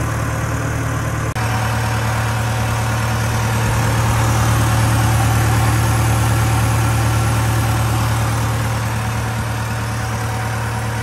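Case CX90 tractor's diesel engine idling steadily, with a brief dropout a little over a second in.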